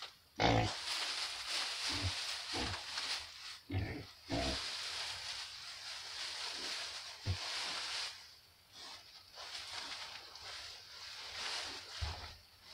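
Young pigs rustling and burrowing through a deep bed of hay, with short low grunts now and then.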